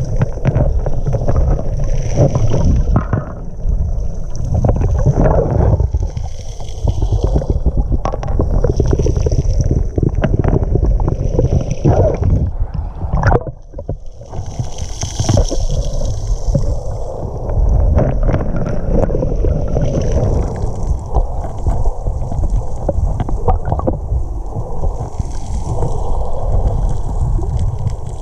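Lake water picked up by a camera held underwater: a steady low rumble and sloshing with scattered crackles, briefly dropping away about halfway through.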